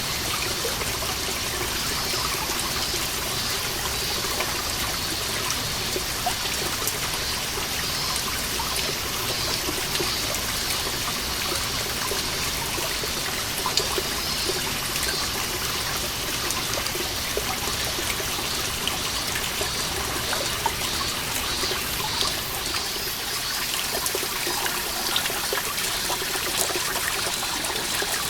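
Water seeping from a moss-covered wall, falling as many small drops over a steady trickle. Cicadas sing in a pulsing chorus.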